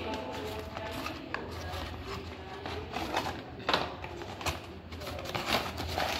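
Paper-and-cardboard parcel mailer crinkling and rustling as it is cut open with a small blade and handled, with scattered light clicks and one sharper knock just past the middle.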